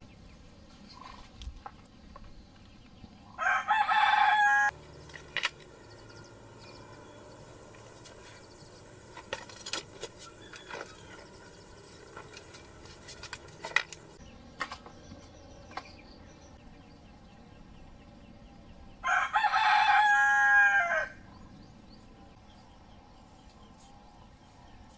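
A rooster crowing twice, once about three seconds in and again about nineteen seconds in, each crow lasting one to two seconds and dropping in pitch at the end. Between the crows there is only a faint background with scattered light clicks.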